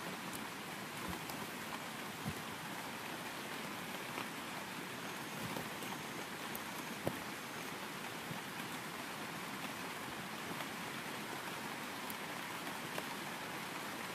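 Steady rain falling, an even hiss with a few sharper ticks of single drops.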